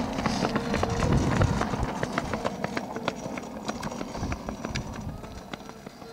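Running footsteps on asphalt and the rattle of a small pushcar's wheels as two children push it fast around a course, a quick patter of sharp ticks over a rolling rumble. It fades steadily as the kart moves away.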